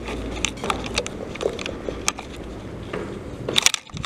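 Footsteps scuffing and crunching on a gritty construction-site floor, as irregular clicks and scrapes over a low rumble, with a quick run of sharper clicks near the end.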